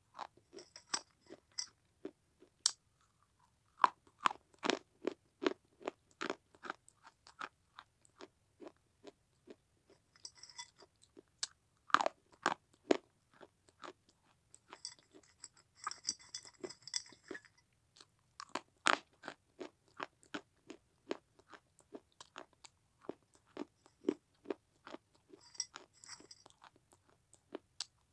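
Close-up crunching and chewing of pieces of baked red clay, sharp crunches coming about two or three a second in runs with short pauses between bites.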